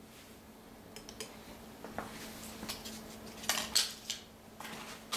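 Irregular crackles and clinks, growing louder through the second half, from another effervescent tablet being added to a bottle of oil and water.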